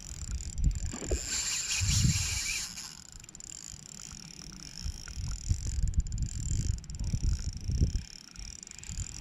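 Irregular low rumbles and knocks of wind and handling on the camera microphone, with a short hiss about a second and a half in.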